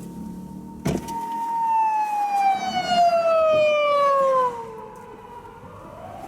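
Japanese police patrol car siren wailing: one long tone falling slowly over about four seconds, then beginning to rise again near the end. Before it, car engine and road noise ends at a sharp click about a second in.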